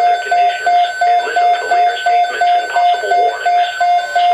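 Electronic alert tone from an Emergency Alert System broadcast, beeping in even pulses about three times a second at a single mid pitch.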